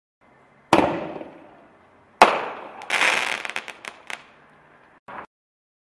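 Shell Shocked consumer mortar shell fired from its tube: a sharp launch thump just under a second in, a louder burst about a second and a half later, then about a second of dense crackling as the stars pop.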